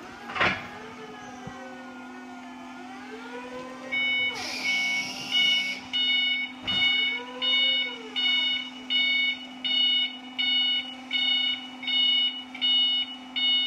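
Electric counterbalance forklift manoeuvring: a steady hum with a motor whine that rises and falls in pitch. From about four seconds in, after a brief hiss, its warning beeper sounds about one and a half times a second.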